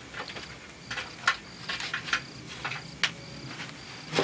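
A cricket chirping steadily, short high chirps about twice a second, with several sharp clicks or knocks on top, the loudest about a second in and right at the end.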